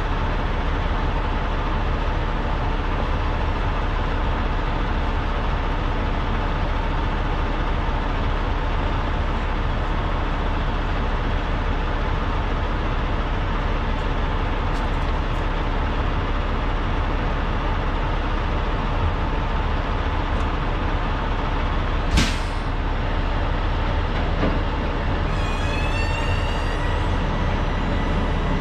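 Steady drone of diesel semi-trucks idling. About six seconds before the end comes a short, sharp burst like an air brake, and near the end a thin, high squeal rises.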